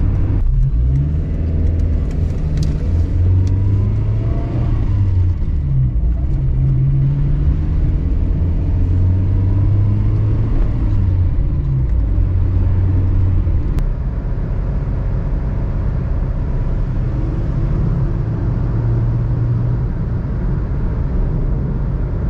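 Cabin sound of a 2021 Suzuki Alto 660cc cruising at about 100 km/h: a steady low engine drone over tyre and road noise.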